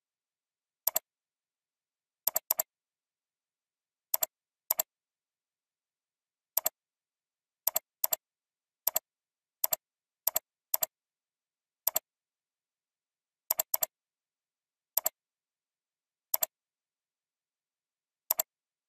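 Computer mouse clicks: about seventeen short, sharp clicks at irregular intervals, several coming in quick pairs, with dead silence between.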